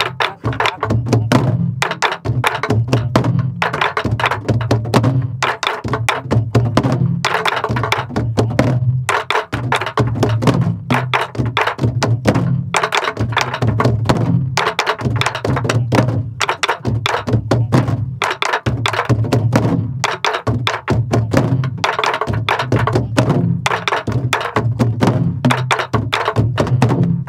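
A group of sori-buk, the barrel drums of pansori, played together in a fast repeating rhythm: sharp stick clacks on the wooden shell and deep thuds of the left palm on the drumhead. The pattern is ttatta-kung-tta-kung-kung, with the final left-hand stroke doubled.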